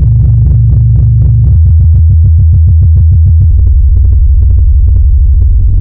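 Loud electronic synthesizer music built on a deep bass line of stepped notes. It pulses rapidly, about ten beats a second, in the middle stretch.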